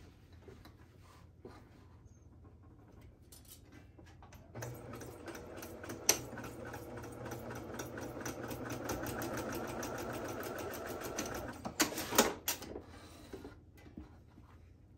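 Domestic electric sewing machine stitching a seam in fabric: after a few quiet seconds of handling, it runs at a rapid, even stitch rate for about seven seconds, then stops, followed by a couple of sharp clicks.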